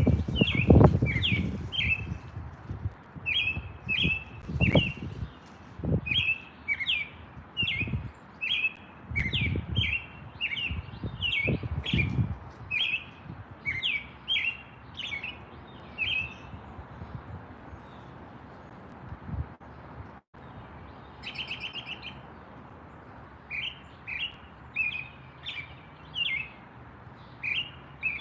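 Small birds chirping: short, sharp, high chirps repeated about twice a second, pausing for several seconds after about sixteen seconds in, with a brief buzzy trill before they resume. Low thumps sound under the chirps in the first twelve seconds or so.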